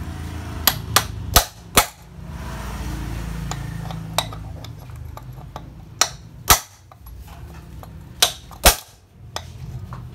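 Hammer blows on a 19 mm socket used as a drift, driving a new pulley bearing into a scooter's aluminium CVT cover: sharp metallic knocks, a quick run of four in the first two seconds, then single or paired strikes every second or two, about nine in all.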